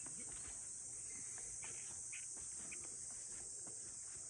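Summer insect chorus: a steady, high-pitched, unbroken buzzing trill from many insects.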